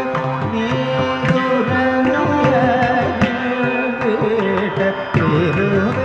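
Carnatic song in raga Behag, set to khanda chapu tala. A voice sings a wavering, ornamented melodic line over a steady drone, with regular hand-drum strokes.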